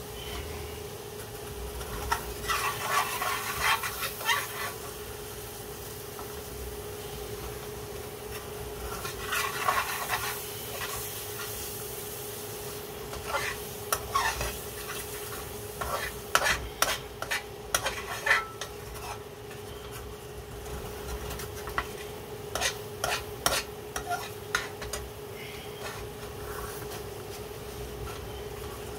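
A wooden spoon stirring and scraping through a simmering cream curry sauce in a metal frying pan, over a soft sizzle. There are sharp knocks of the spoon against the pan in the middle and again later, and a steady hum throughout.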